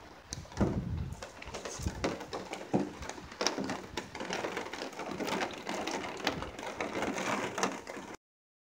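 Storm wind gusting on the microphone, with a crackling patter of rain; the sound cuts off suddenly near the end.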